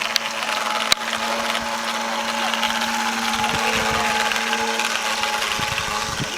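Graupner Speed 700BB Turbo electric motor of a vintage wooden RC boat running steadily with a whine over an even hiss. Two sharp clicks in the first second, the second louder.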